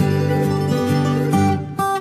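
Background music played on plucked acoustic guitar, a run of changing notes.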